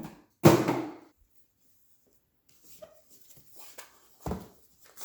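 Packaging being handled and set down on a table during an unboxing: a loud thud about half a second in, then light handling noises and a smaller knock near the end.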